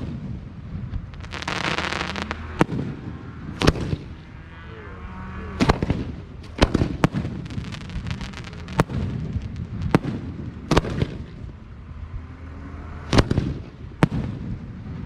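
Fireworks show: aerial shells bursting in a run of sharp bangs at irregular intervals, about a dozen in all. There is a brief crackling hiss about one and a half seconds in.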